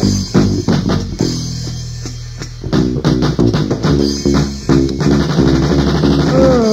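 Rock band playing an instrumental passage on electric guitar, bass guitar and drum kit. About a second in the drums drop out and a chord rings on; the full band comes back in about three seconds in.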